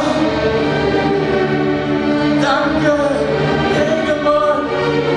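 Choral music: a choir singing long held notes that change pitch every second or so.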